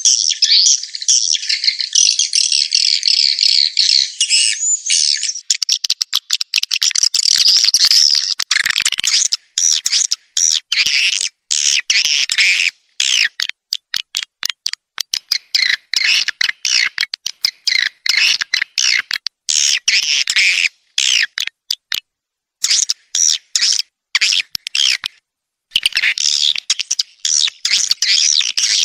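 Swiftlet lure call track for a swiftlet house: dense, high twittering chirps of edible-nest swiftlets, which from about five seconds in break into rapid stuttering bursts with short silent gaps.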